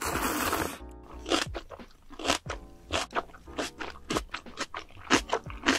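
Close-miked eating of spicy ramen noodles: a long noisy slurp of noodles, then steady chewing with sharp, short crunching bites about two a second.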